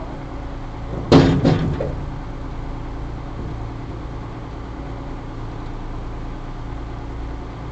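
Small river ferry's engine running with a steady hum, and a brief loud clatter about a second in.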